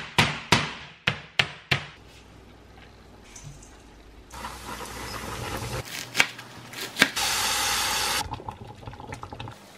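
A meat mallet pounding boneless chicken through baking paper, five quick strikes in the first two seconds. Later, after a stretch of quieter hiss, thickened cream is poured into a hot pan of sautéed mushrooms, a loud steady hiss lasting about a second.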